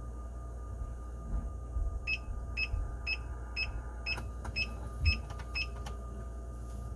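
Kegco kegerator running with a steady low hum and a faint steady tone. About two seconds in, eight short electronic beeps come two a second, with a few light clicks among them.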